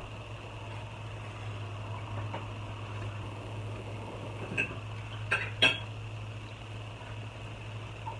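A few short clinks of forks against dishes about halfway through, the last two close together, over a steady low hum.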